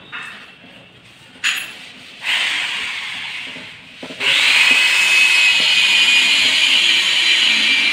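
Electric drill-driver driving a screw to fix a kitchen chimney's steel wall-mounting bracket: a short run about two seconds in, then from about four seconds it runs steadily.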